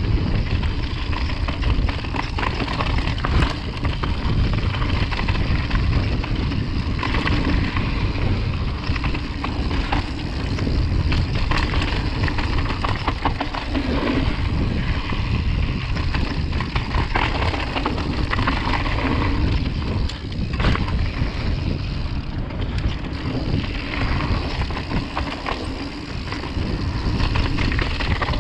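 Mountain bike descending a dirt and gravel trail at speed: tyres rolling and skittering over the loose surface with constant short rattles and clatter from the bike, under a steady rush of wind on the microphone.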